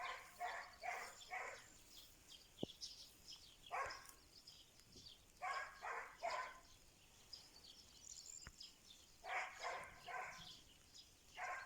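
A distant dog barking in short runs of two to five barks, every few seconds. Small birds chirp faintly and steadily in the background.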